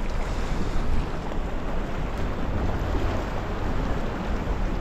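Wind buffeting the microphone over waves washing and foaming against the rocks: a steady rushing noise, heaviest in the low rumble.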